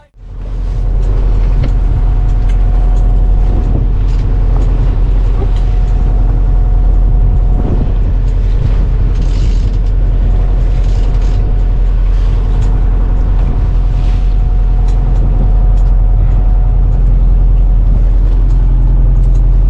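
Sailboat's engine running steadily under way, with a heavy low rumble and a few steady tones.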